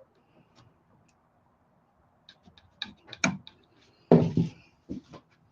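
Scattered small clicks and knocks of hand tools and metal parts as the loosened V-wheels on a CNC router's gantry are tightened, beginning a little over two seconds in, with a louder clatter about four seconds in.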